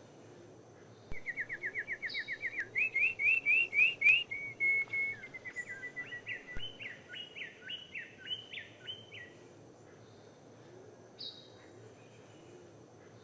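A songbird singing a long, fast phrase of repeated notes, quick chirps that turn into rising slurred notes and then a run of falling notes, lasting about eight seconds. A few faint short calls follow near the end.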